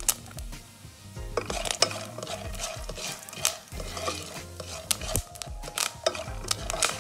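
A spatula stirs popcorn kernels around an oiled non-stick frying pan, the kernels rattling and scraping, with a few sharp clicks scattered through.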